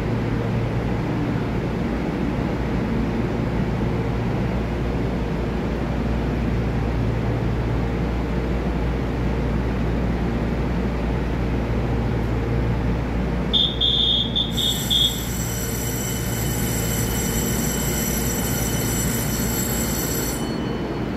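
TRA EMU3000 electric multiple unit train standing at the platform with a steady low hum. About two-thirds of the way in come a few quick high-pitched beeps, then a steady high electronic tone lasting about six seconds. The tone stops just before the end, as the train starts to move.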